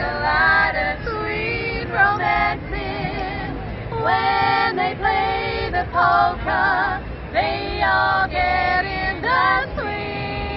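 A female vocal trio singing together in close harmony, with vibrato on held notes.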